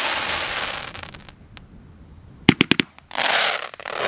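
Snake Charmer consumer firework cake firing: a loud hiss from the burning shots fades out over the first second, then a quick string of four or five sharp cracks comes about two and a half seconds in, followed by a short hissing rush as another shot leaves the tube.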